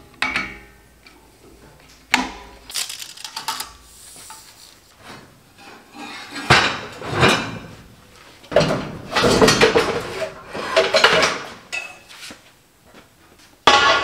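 Steel parts and tools clanking and rattling as they are handled and rummaged through on a shelf, in irregular bursts with some metallic ringing. The busiest clatter comes a little past the middle, with another loud clank near the end.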